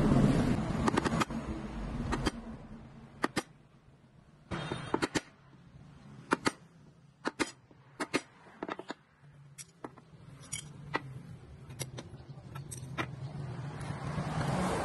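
Sharp, scattered metallic clicks and clinks as small cut steel plate pieces are center-punched and handled. A passing road vehicle's rumble fades over the first two seconds and another builds near the end.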